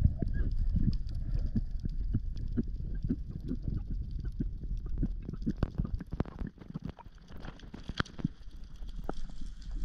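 Underwater ambience picked up by a camera beneath the sea: a low rumble of water with many scattered, irregular clicks and crackles.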